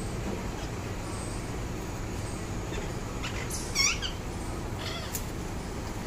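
A parakeet's short, high call with a wavering pitch about four seconds in, followed by a fainter, shorter call about a second later, over a steady low background rumble.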